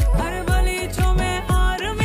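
Background music with a steady beat, about two deep bass thumps a second, and a melody over it.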